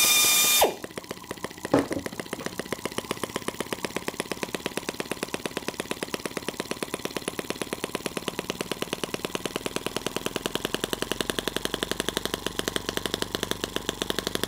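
A cordless drill whines briefly, spinning a miniature brass single-cylinder four-stroke gasoline engine to start it. The engine fires with a sharp pop about two seconds in, then runs on nitromethane fuel as a rapid, even string of exhaust pops that grows a little louder toward the end.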